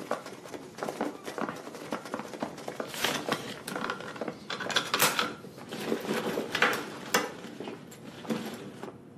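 Clattering and knocking of classroom chairs and desks being shifted, with a few longer scrapes, as people pack up and leave.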